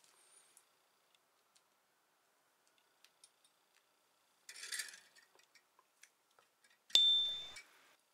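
Small steel hand tools, needle files and a drill bit, being handled and set down on a steel bench vise: light clicks and a brief rattle just before the middle, then a sharp metallic clink with a short high ring near the end as a file is laid on the vise.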